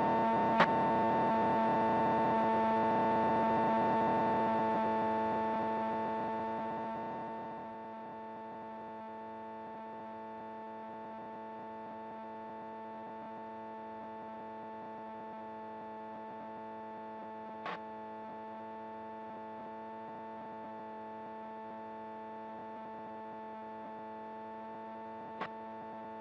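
Steady drone of a Piper Sport's Rotax 912 engine and propeller at constant cruise power, as picked up through the cockpit headset audio. It drops in level a few seconds in and then holds steady, with two short faint clicks in the second half.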